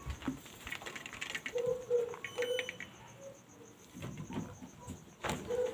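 Dry beans being tipped from a plastic colander into a clay pot of water: scattered clicks and rattles, with a sharper knock near the end. A few short low tones sound in between.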